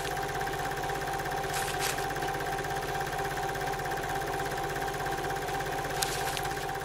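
Film projector running: a steady, rapid mechanical clatter over a constant hum, with a couple of brief ticks.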